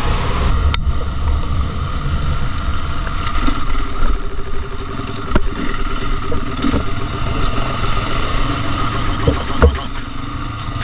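Motorcycle engine running on a ride, under heavy wind buffeting on the microphone, with a few sharp knocks scattered through.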